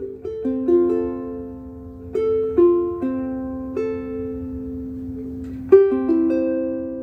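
Acoustic ukulele strung with Aquila Big Black strings, fingerpicked: single notes and small chords plucked one after another and left to ring, with a sharper, louder pluck near the end.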